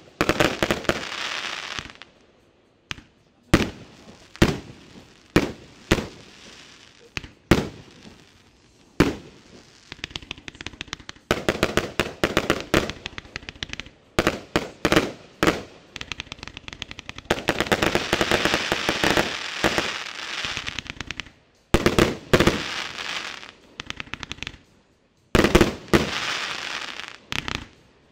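Triplex TXB099 Pyro Night 264-shot firework cake (20–38 mm tubes) firing. Its shots and bursts come sometimes singly about a second apart, sometimes packed into dense stretches of crackling, with a few brief pauses between volleys.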